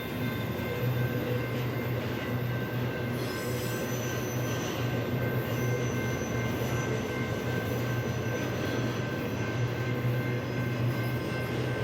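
BNSF intermodal freight train rolling past, its steel wheels squealing in several steady high-pitched tones over a constant low rumble; more squeal tones join about three seconds in.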